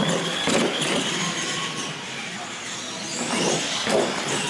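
Electric radio-controlled monster trucks racing, their motors giving a high whine that shifts with throttle, with sharp knocks as the trucks hit the ramps and land, over voices in the background.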